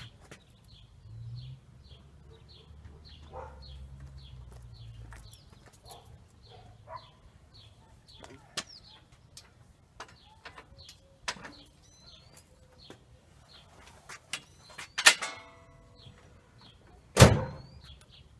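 Bosch TS2000 table saw stand, with the saw mounted, being unloaded from a pickup bed: scattered knocks and rattles, a low rumble in the first few seconds, a ringing metal clang about 15 seconds in and a heavy thump shortly after. A bird chirps steadily throughout, about two calls a second.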